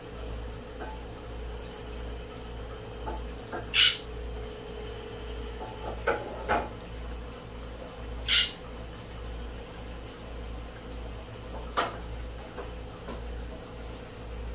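A low steady hum, with a handful of short, sharp knocks and clicks, the two loudest about four and eight seconds in.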